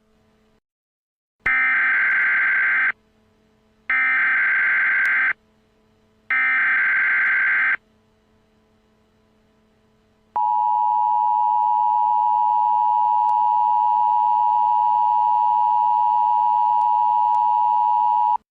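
Emergency Alert System header tones: three short buzzy digital data bursts about a second apart, then the steady two-tone attention signal, held for about eight seconds. This marks the start of a new alert.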